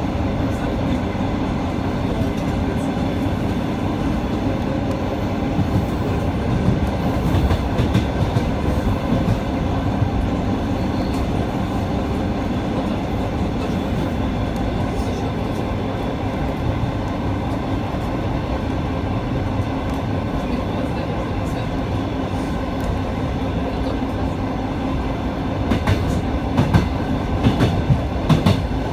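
ET2 electric multiple unit heard from inside the passenger car while running along the line: a steady rumble of wheels and running gear with a low hum. Near the end comes a run of sharp clickety-clack knocks from the wheels crossing rail joints.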